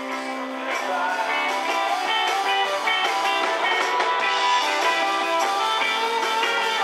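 Live rock band playing an instrumental stretch with electric guitar to the fore over bass and drums; the music gets louder about a second in.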